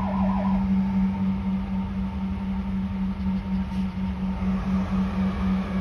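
A fast warbling electronic tone, like an alien spaceship, from a river vessel cuts off about half a second in. A steady low hum over a low rumble carries on after it.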